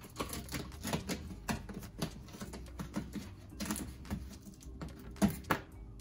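Insulation liner of a car door being peeled off its sticky sealant: a run of small irregular crackles and clicks, with a couple of louder ones about five seconds in.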